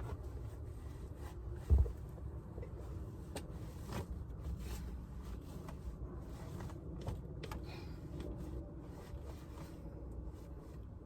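Handling noises as things are moved and pushed into a storage space: soft rustling and scattered light knocks, with one dull thump about two seconds in.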